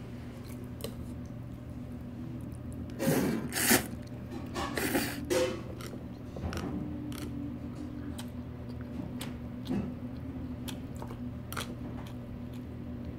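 Eating cold buckwheat noodles: two short slurps about three and five seconds in and a few light clicks, over a steady low hum.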